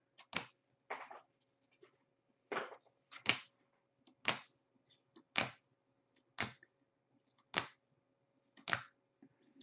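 Hockey cards in rigid plastic toploaders clacking against each other as they are flipped one at a time through a stack, a sharp click about once a second, over a faint steady hum.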